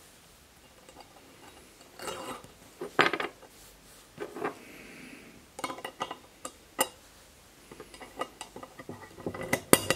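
Steel ejector of a Beretta 680-series over-under shotgun being pushed and twisted by hand in its slot in the barrel breech, making a string of short metallic clicks and knocks. The loudest come about three seconds in and just before the end.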